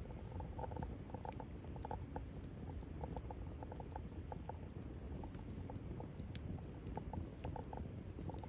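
Campfire crackling: frequent small irregular pops and snaps of burning wood over a low steady rush of flame.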